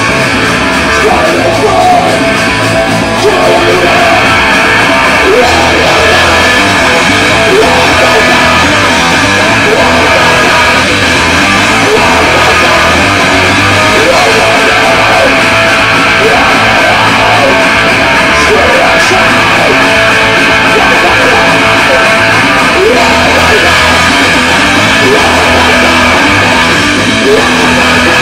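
A live rock band playing loud: electric guitar through a Marshall amp, electric bass and a drum kit with cymbals, a dense, unbroken wall of sound.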